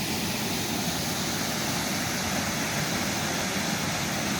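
Steady rushing of creek water pouring over a small falls.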